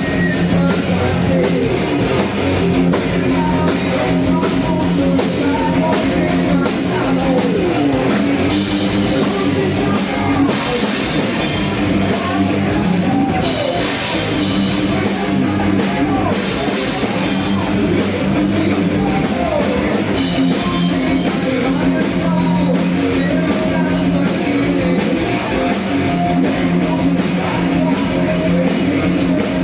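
A rock band playing heavy metal live, with electric guitar and a drum kit.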